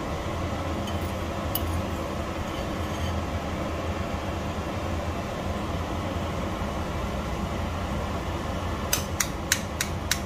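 Metal fork clinking against a ceramic bowl, five quick taps near the end, as raw egg yolks are broken into cooked rice. Fainter clicks of a spoon on the bowl come a second or two in, over a steady low hum.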